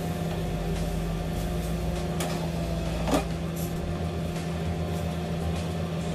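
Steady hum of a kitchen appliance's motor, with a plastic spatula scraping through cream sauce in a non-stick pan and knocking lightly against it twice.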